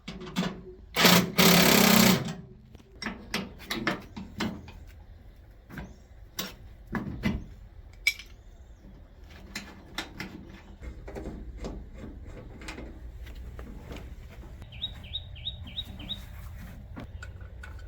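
Scattered clicks and knocks of parts and tools being handled, with two loud bursts of hiss about a second in. A steady low hum builds later, and a quick run of five short high beeps sounds near the end.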